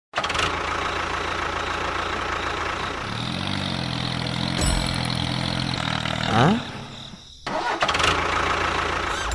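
A motor or engine running steadily, starting abruptly, with a rising whine about six seconds in and a short break about a second later.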